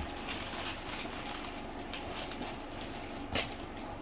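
Scissors slicing through packing tape on a cardboard box, with scraping and rustling of cardboard and plastic wrapping and one sharper knock about three and a half seconds in.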